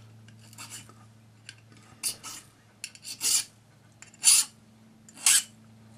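Number two cut flat hand file scraping across the edge of a small enamelled cloisonné piece, filing back the cloisonné wire ends. It makes about six short strokes, the last three louder and about a second apart.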